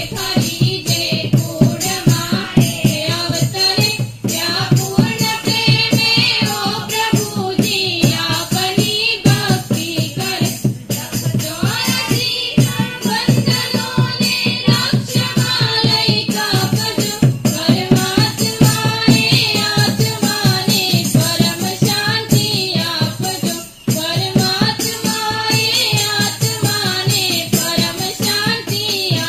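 A group singing a devotional bhajan, with a fast, steady percussion beat keeping time under the voices.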